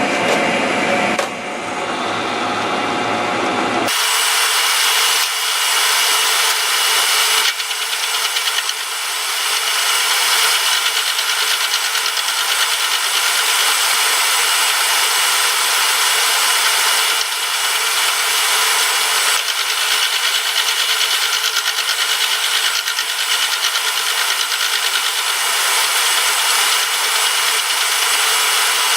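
A power tool working metal: a steady, loud scraping, cutting noise with a high whine running through it. The sound changes abruptly about four seconds in.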